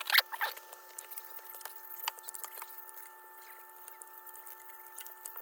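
Rag scrubbing and wiping the plastic of an old rotary phone: short scratchy rubs and small clicks, with a louder clatter of handling in the first half second.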